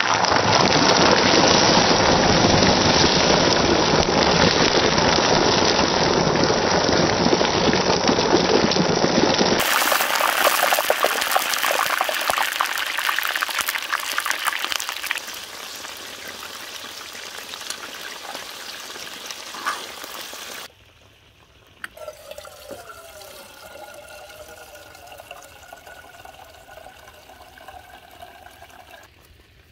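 Chicken wings frying in hot cooking oil: a loud, steady sizzle that grows quieter after about ten seconds and drops to a much fainter stretch about two-thirds of the way through.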